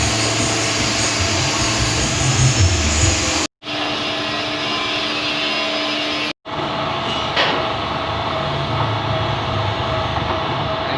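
Pellet mill running: a steady mechanical drone with a constant hum. It cuts out abruptly and resumes about three and a half and six and a half seconds in.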